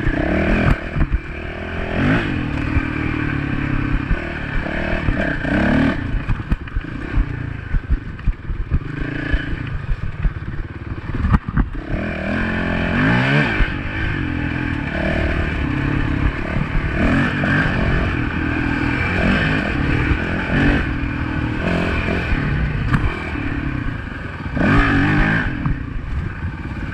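Honda dirt bike engine running on a rough dirt trail, revving up and easing off again and again, with knocks and clatter from the bike over the bumps; a sharp knock about eleven seconds in.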